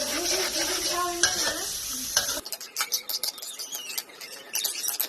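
Fried rice sizzling in a hot pan while it is stirred with a spatula. The sizzle cuts off abruptly about halfway through, leaving light clicks and scrapes.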